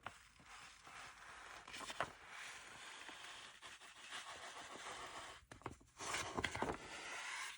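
A bag rustling and crinkling as it is shifted and handled, with a few sharper crackles. It stops briefly about five and a half seconds in, then starts again.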